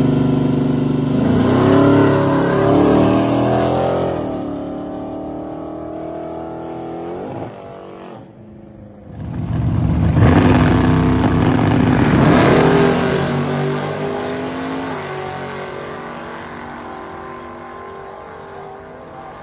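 Car engine revving and accelerating, its pitch climbing and falling, in two long spells: the second, louder one starts about nine seconds in and slowly fades.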